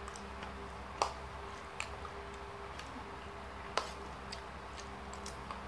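Person chewing food, heard as a few short sharp clicks, the clearest about a second in and just before four seconds, over a steady low hum.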